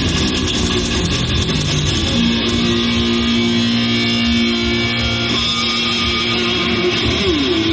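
Live black metal band playing at full volume: distorted electric guitars over bass and drums. A long note is held through the middle, and a note slides down in pitch near the end.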